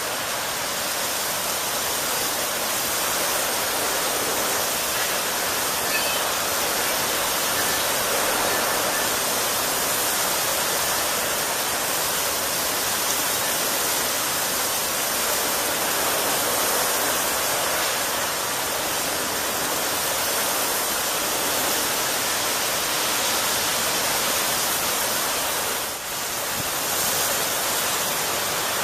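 Torrential rain pouring down in a steady, dense hiss, with a brief dip in level near the end.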